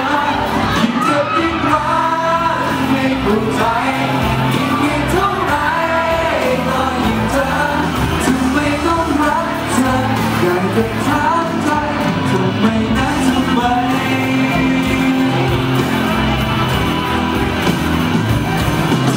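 A male singer sings a Thai pop ballad live into a handheld microphone over backing music.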